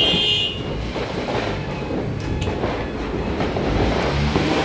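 Dense crackle of firecrackers going off in rapid, irregular succession over a low rumble, with a short higher burst at the very start.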